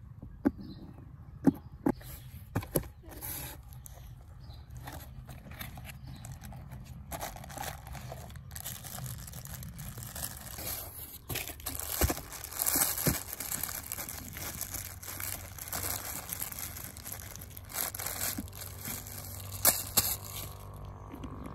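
Unboxing a toy: a few sharp knocks on cardboard in the first three seconds, then a clear plastic bag crinkling and rustling for most of the rest as the toy tractor is pulled out of a small box and unwrapped.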